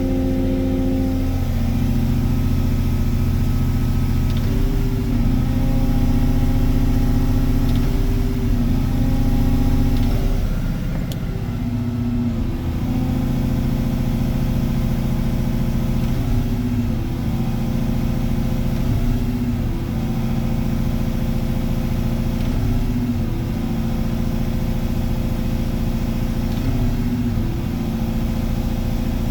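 Volvo EC220EL crawler excavator's diesel engine running steadily, its pitch sagging briefly and recovering every few seconds.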